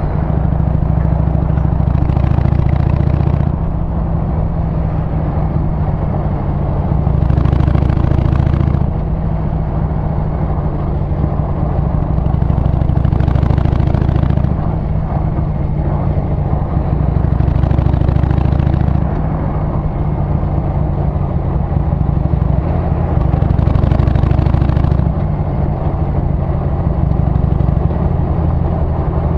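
Harley-Davidson Sportster 883's air-cooled V-twin engine and exhaust running at road speed, heard from the rider's seat. The note swells louder for a second or two about every five seconds, then settles back.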